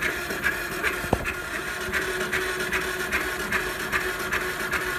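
Cogent DR790 single-cylinder engine being turned over on its electric starter with no fuel in the carburettor: a steady starter whine with even compression pulses about two and a half a second. It is being cranked to build up oil pressure before the first start.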